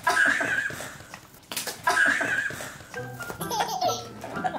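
Two bursts of laughter, one at the start and one about a second and a half later, over light background music.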